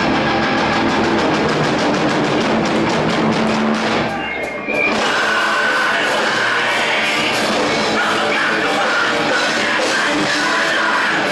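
A rock band playing live at full volume: fast, dense drumming with guitars. The band kicks in right at the start, briefly drops back about four seconds in, then comes in again at full volume.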